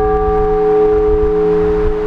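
The lingering ring of a large Orthodox church bell after a single stroke: a steady hum with several higher overtones, over a low rumble.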